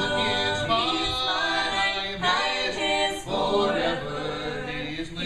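Several men and women singing a gospel song together in harmony, a cappella.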